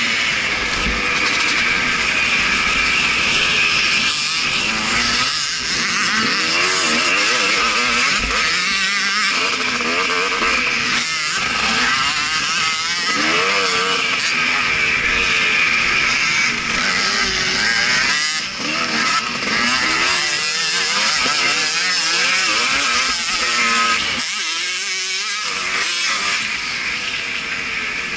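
Motocross bike engine revving up and down as the rider opens and closes the throttle around the track, over a steady rushing hiss. The engine note drops off briefly a few times where the throttle is shut, most clearly late on.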